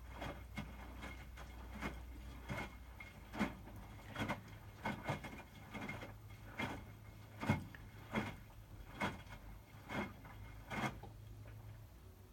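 Hotpoint WMFUG 942 front-loading washing machine turning its drum over a wet load during the bed & bath 60° wash while the water heats: a low motor hum with a series of irregular knocks and clunks as the load drops, the hum stopping near the end as the drum pauses.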